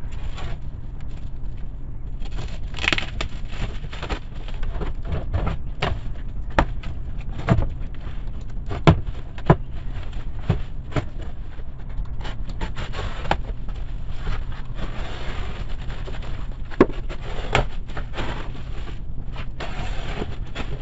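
Unboxing a heavy parcel: black plastic stretch film being cut and torn off a cardboard box with crinkling and rustling, then the cardboard lid and flaps being lifted and scraped open, with many sharp knocks and clicks along the way. A steady low hum sits underneath.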